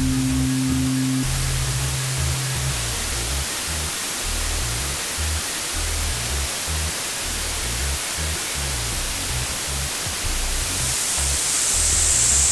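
Synthesizer noise generator hissing steadily: the raw noise layer of a synthesized blizzard ambience. Low held synth tones drop out within the first few seconds. Near the end a high, narrow whistle rises out of the hiss.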